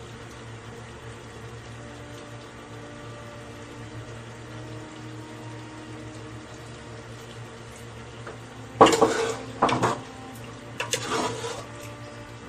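Olive oil poured from a metal tin into a ladle over a pressure cooker, over a steady low hum, with two loud spells of noise from the pouring and handling about nine and eleven seconds in.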